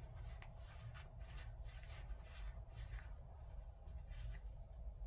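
Faint rag wiping in a run of short rubbing strokes, two or three a second, cleaning grime out of a dirty carburettor part.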